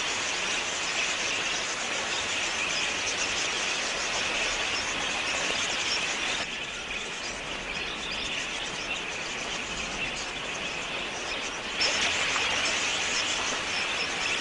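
A large flock of budgerigars chattering: a dense, continuous mass of high chirps. It drops a little about six and a half seconds in and comes back up about twelve seconds in.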